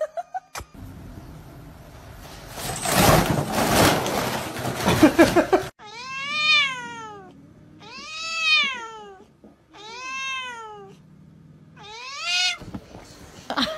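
A tabby cat yowling at another cat: four long, drawn-out calls, each rising then falling in pitch. Before them comes a few seconds of loud noisy rush that cuts off suddenly.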